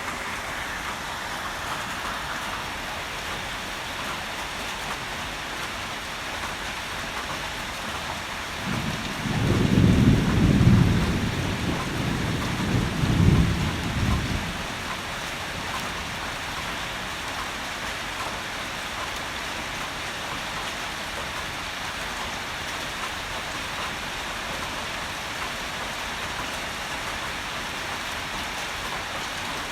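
Heavy rain falling steadily, with a peal of thunder about nine seconds in that rolls in two low swells and dies away after some five seconds.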